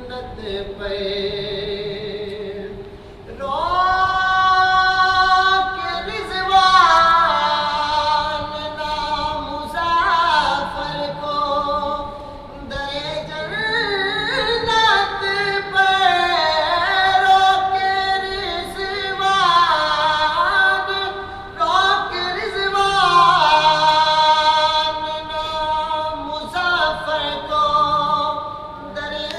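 Urdu naat sung a cappella, with no instruments: long held vocal lines with ornamented turns that bend up and down in pitch, getting louder about three seconds in.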